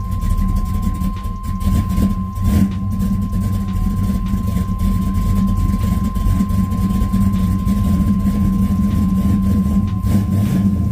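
LS-swapped V8 engine idling steadily, its idle speed climbing from about 500 to 1,000 rpm as it warms up. A thin, steady high tone runs along with it.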